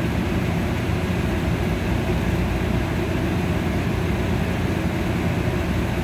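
Steady low rumble of a running rooftop package air-conditioning unit: its fans and compressor operating.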